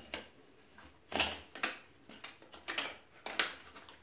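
Chrome sink trap and drain pipe fittings clicking and knocking as they are pushed together and adjusted by hand: several short, sharp taps starting about a second in.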